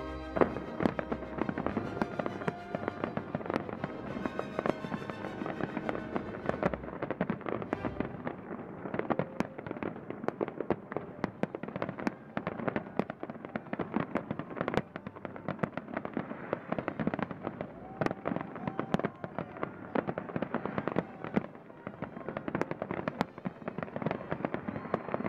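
Aerial fireworks display: a rapid, continuous barrage of bangs and crackling bursts, with music playing underneath for the first several seconds.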